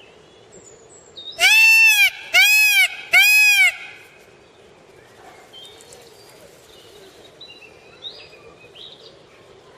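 Indian peafowl (peacock) giving three loud calls in quick succession, each a rising and falling wail.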